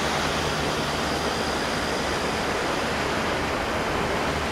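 A steady, even rushing noise with no breaks or rhythm.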